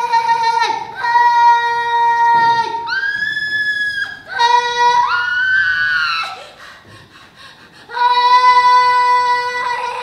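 A high voice singing long held notes one after another, each dropping off in pitch at its end, with a quieter gap about six seconds in before a last held note.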